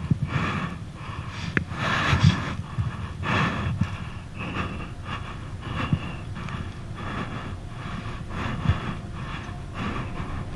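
Heavy, rhythmic breathing close to the microphone of a person climbing a metal roof ladder, a breath about every second, with a few knocks and thumps from hands and feet on the rungs.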